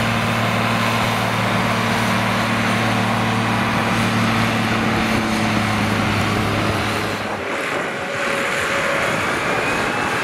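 Ford TW-series tractor's six-cylinder diesel engine running under full load as it drags a weight-transfer pulling sled, a steady low drone. About seven seconds in the drone drops away.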